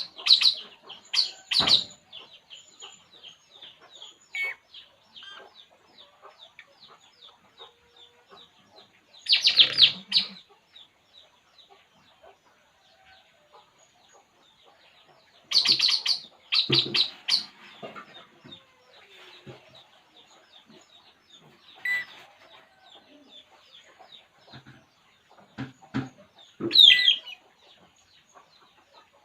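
A bird known locally as burung puling giving short bursts of rapid chattering calls, about five times over, with softer chirps and a few low knocks in between.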